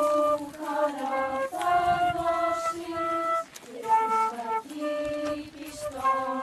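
Transverse flute playing a slow melody of held notes, one note every half second to a second.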